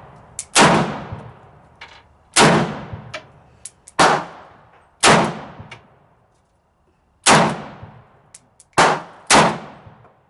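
Romanian Mini Draco AK pistol in 7.62x39 firing seven single shots at an uneven pace, each a sharp crack with a fading echo, with a pause of about two seconds midway and a quick pair of shots near the end. Faint short ticks sound between some of the shots.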